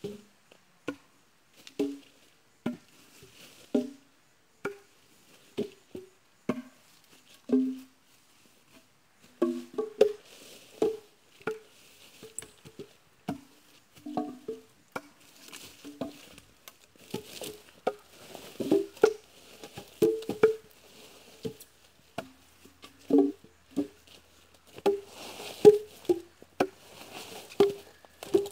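Irregular chopping blows of a hand-swung blade into felled eucalyptus wood, about one or two knocks a second. Each knock has a short, pitched ringing note.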